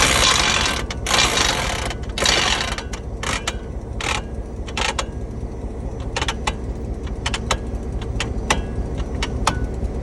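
Model freight train running: a steady low rumble, with a few seconds of hissing at first, then a string of irregular sharp clicks.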